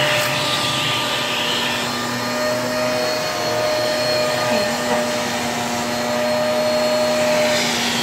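Small handheld vacuum cleaner running steadily: a rush of air with a constant motor whine, its nozzle held against a carpeted cat-tree perch.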